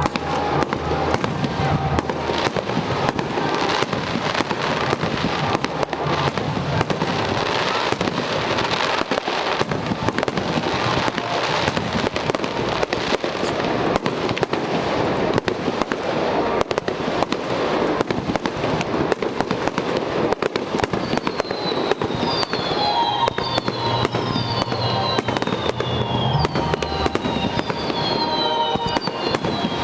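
Fireworks display: a dense, unbroken barrage of bangs and crackles, joined in the second half by several high whistles that fall in pitch.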